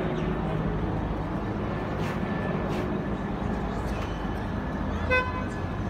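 Steady low drone of a helicopter overhead mixed with street traffic. A brief beep sounds about five seconds in.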